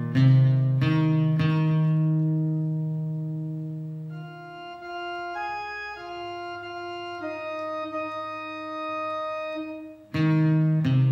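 Instrumental music: guitar chords strummed and left to ring for the first few seconds, then a keyboard with an organ sound holds slow chords that change a few times. Guitar strumming starts again near the end.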